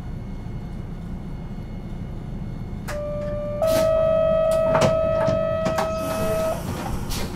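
On board a 1950 Nippon Sharyo Series 202 streetcar: a low steady rumble. About three seconds in, a steady buzzing tone starts, gets louder and cuts off about three seconds later, with clicks and knocks over it. A short hiss follows near the end.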